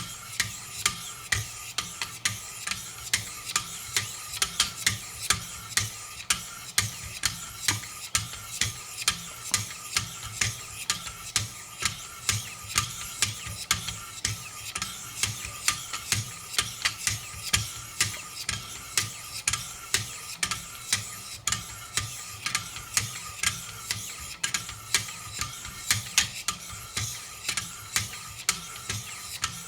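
Knife blade being sharpened on a Wicked Edge guided sharpening system with 800-grit stones: a steady run of quick, even scraping strokes, about three a second.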